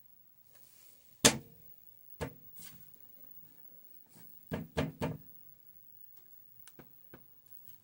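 Knocks and taps on a CRT monitor's cabinet: a loud knock about a second in, another a second later, a quick run of three about halfway, then a few light ticks near the end.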